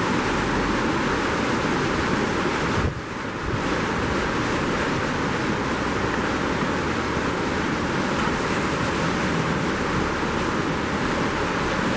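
Steady rush of a shallow mountain river running over rocks, dipping briefly about three seconds in.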